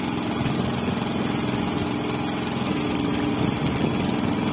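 A small engine running steadily, an even hum that does not change.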